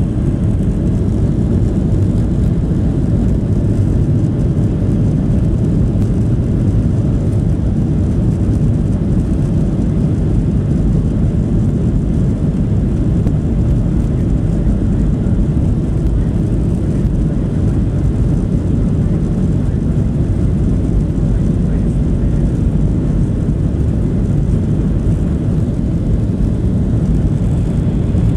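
Jet airliner's engines heard from inside the passenger cabin as the plane taxis: a steady, low noise that holds even throughout.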